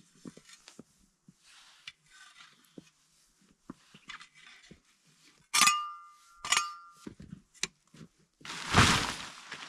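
Metal tools and gear being handled: light clicks and rustling, then two sharp metallic clinks about a second apart, each ringing briefly, and a louder rustle near the end.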